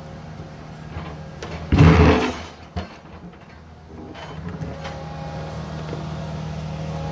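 Excavator bucket scraping and striking a buried rock, loudest briefly about two seconds in, over the machine's steady engine, which grows louder in the second half as the arm pushes in.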